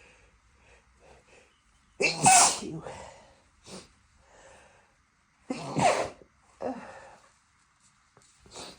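A person sneezing twice, the first about two seconds in and the second about three and a half seconds later, with softer breathy sounds before and between them. The sneezes are set off by the strong scent of a musky rose candle.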